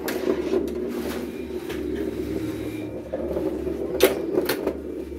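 1979 Briarwood Demolition Classic pinball machine in play: sharp mechanical clicks and knocks from flippers and playfield parts over a steady hum, with the loudest knock about four seconds in.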